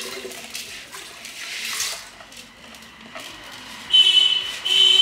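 Dal and water poured from a plastic bowl into a pressure-cooker pot, a splashing pour that builds over about two seconds. About four seconds in, two short, loud, high buzzing tones sound, the loudest thing heard.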